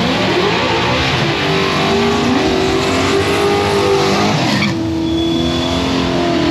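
Drag-racing street car's engine revving hard, its pitch climbing and then holding high, over a loud hiss of tire noise. The hiss cuts off abruptly about three-quarters of the way through while the engine keeps running at high revs.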